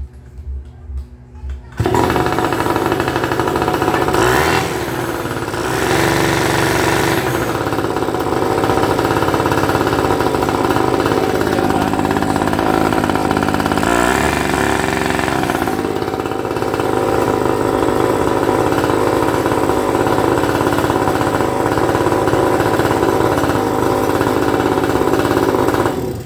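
Hangkai 3.5 hp two-stroke outboard motor running loud and steady, its speed shifting a couple of times, then cutting off sharply near the end.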